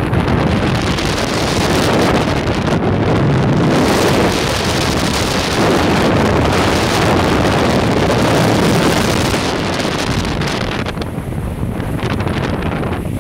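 Strong wind buffeting the microphone over the rush and splash of water along the hull of a Dragonfly trimaran sailing fast in choppy water. The hiss eases briefly about eleven seconds in.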